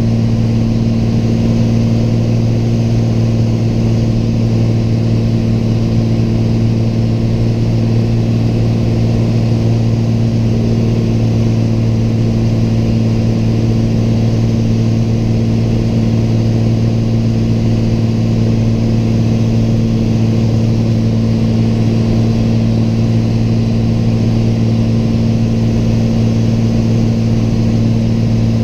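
Single-engine Piper light aircraft's piston engine and propeller running steadily in flight, heard from inside the cockpit as a loud, even drone.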